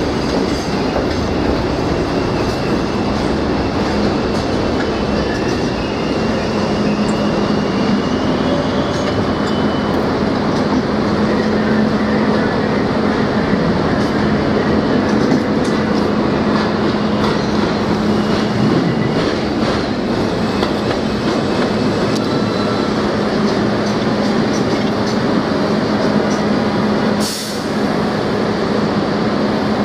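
R32 subway cars on the elevated J line, their steel wheels running on the track with faint high squeals in the first several seconds. After several seconds a steady low hum sets in, and the noise runs on loud and unbroken.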